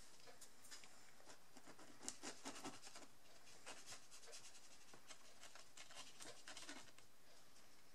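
Faint scratching and rubbing of a glue bottle's tip worked over glitter card, in short runs of ticks about two seconds in and again about six seconds in.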